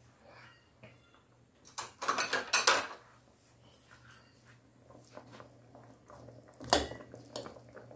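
A kitchen drawer being pulled open and cutlery rattling as a fork is taken out, about two seconds in. Near the end there is a single sharp metal knock as the fork goes into the aluminium pot. A low steady hum runs underneath.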